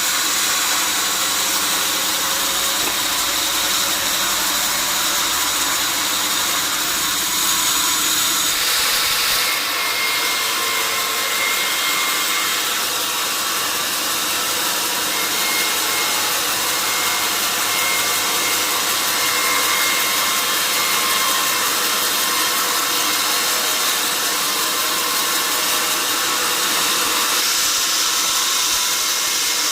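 Sawmill saw running steadily while sawing mahogany: a dense, even hiss with most of its weight high up and a few faint steady tones.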